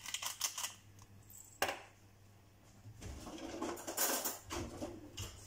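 Hand pepper mill being twisted, a quick run of grinding clicks that stops under a second in. Then comes a single knock, and a couple of seconds later a kitchen drawer is opened with cutlery clattering inside it.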